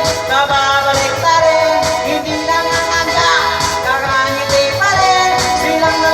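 Music with a sung melody over instrumental accompaniment.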